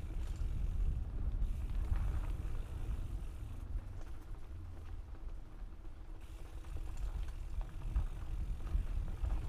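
Mountain bike rolling down a dirt trail, heard from the rider's GoPro: a steady low rumble from the tyres and ground, with scattered rattling knocks from the bike. It eases off a little in the middle and picks up again toward the end.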